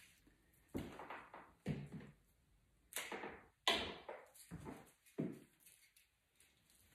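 Flower stems and leaves rustling as they are handled and pushed into a flower arrangement: about six short, sudden swishes a second or less apart, with quiet between.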